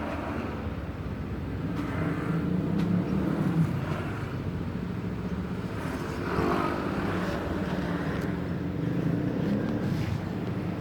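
A motor vehicle engine running steadily, its pitch swelling and rising briefly about six seconds in.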